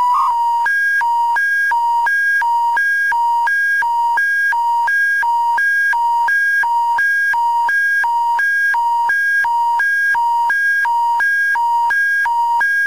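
Emergency broadcast alert tone: a loud, steady hi-lo warble switching back and forth between two pitches, about one low-high cycle every three-quarters of a second, the attention signal that opens a public warning bulletin.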